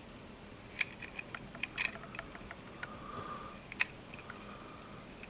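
Scattered light clicks and taps from small objects being handled, a dozen or so irregular strikes, with a brief faint hum a little past halfway.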